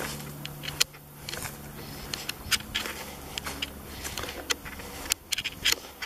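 Footsteps crunching through dry leaf litter and grass, an irregular crackle at walking pace, with rustling from the handheld camera.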